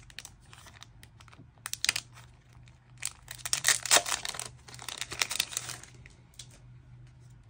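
Plastic shrink wrap crinkling and tearing as it is pulled off a boxed CD album. A brief crackle comes about two seconds in, then a longer stretch of crackling from about three to six seconds in.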